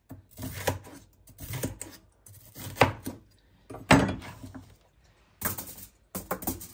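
Kitchen knife cutting red bell pepper on a chopping board: separate knocks of the blade on the board, roughly once a second and irregular, the loudest about four seconds in.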